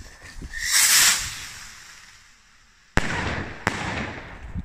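Firework rocket from a Polar assortment launching with a loud whoosh that fades as it climbs. About two seconds later it bursts with a sharp bang, a second crack and crackling.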